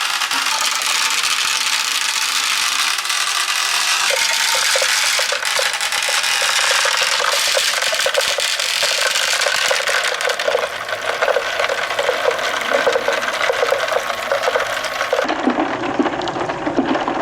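Many small plastic balls rolling and clattering down a plastic somen water slide and rain gutters, a dense rattle of countless small clicks over the hiss of running water. It starts and stops abruptly.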